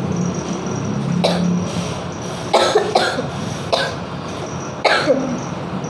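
A person coughing from a flu-like cold: about five short, harsh coughs, two close together in the middle and one near the end, over a steady background hum.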